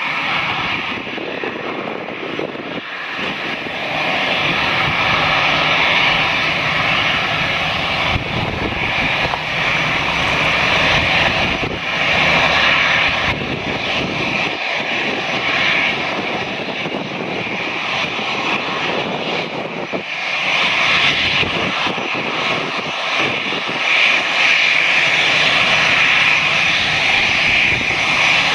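Airbus A319's twin CFM56-5B turbofan engines running at taxi power: a steady whining hiss that grows louder about four seconds in and again about twenty seconds in as the airliner comes closer.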